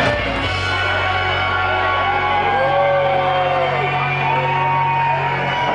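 Live Kölsch rock band holding a long sustained chord, the bass notes steady underneath, with voices singing or calling out over it. The held chord stops near the end, as at the close of a song.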